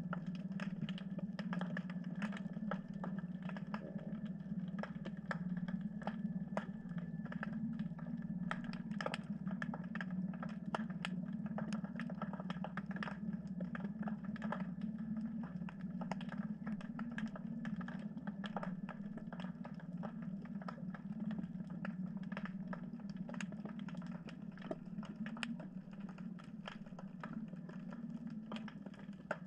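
Underwater ambience picked up by a submerged camera: dense, irregular clicking and crackling over a steady low hum.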